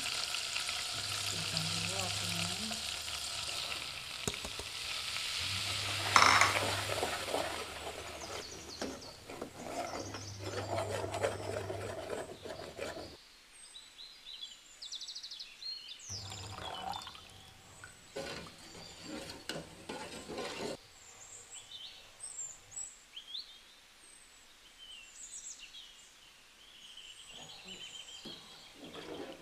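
Butter sizzling and bubbling in a metal saucepan, with a sharp knock about six seconds in. The sizzle stops about halfway through, and then a spoon stirs and scrapes against the pot as flour and milk are worked into a béchamel.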